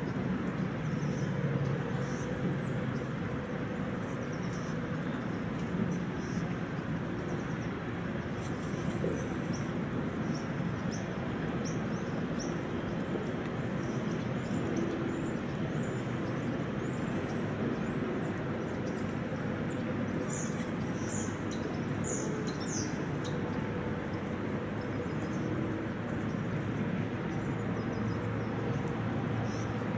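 Small birds chirping in short, high calls, over and over, busiest from about halfway to three-quarters through, over a steady outdoor background rumble.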